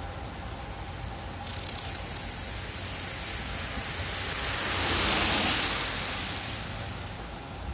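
Car tyres hissing on a wet road as a car passes close, the hiss swelling to its loudest about five seconds in and then fading, over a steady background of traffic.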